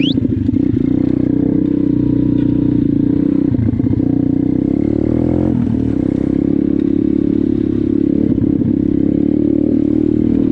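Dirt bike engine running under way at a steady pitch, with a brief dip a little past halfway.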